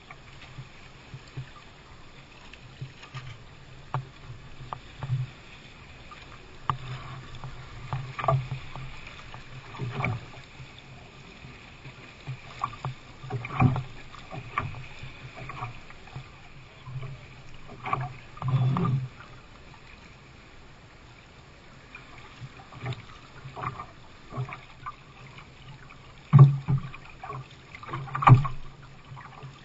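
Canoe paddling at sea: a double-bladed paddle dipping and pulling through the water, with splashes and knocks against the hull at an uneven pace every second or two. The two loudest come close together near the end.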